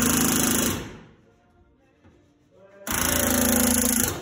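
Pneumatic rivet gun hammering rivets into an Airstream's aluminium body panel: two bursts of rapid hammering about a second and a half each, the first fading out about a second in and the second starting near three seconds.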